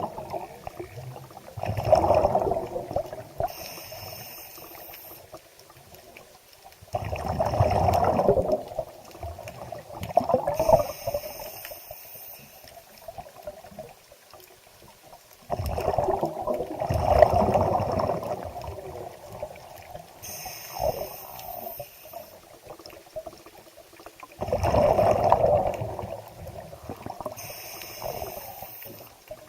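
Water sloshing and gurgling around a boat in irregular surges, each one to three seconds long and several seconds apart, with quieter trickling between them.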